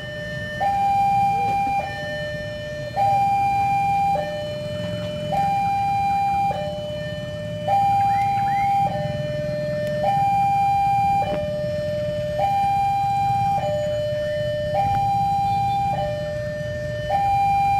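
Two-tone electronic warning alarm alternating a higher and a lower pitch, each held about a second, repeating evenly, over the low steady rumble of an approaching diesel locomotive.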